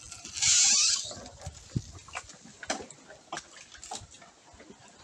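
Leafy branches brushing and scraping against a small wooden boat as it is poled through flooded trees: a brief loud rustle about half a second in, then scattered light knocks and clicks of wood.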